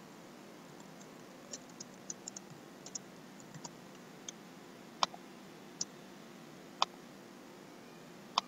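Computer keyboard keystrokes in a quick run of about a dozen taps, then four louder single mouse clicks spaced roughly a second apart, over a faint steady hiss.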